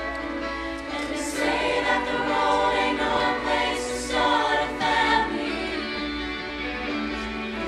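A show choir singing an 1980s pop song in harmony, a girl's lead voice on a microphone over the group, growing louder for a few seconds in the middle.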